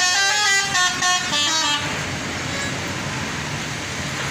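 Basuri multi-tone 'telolet' bus horn playing a quick melody of stepping notes that cuts off about two seconds in, followed by steady background noise.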